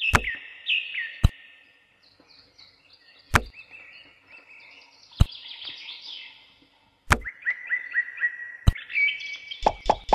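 Small pebbles set down one at a time on a concrete floor, giving a sharp click every couple of seconds, with a quick run of clicks near the end. Birds chirp over it with short, repeated sliding calls.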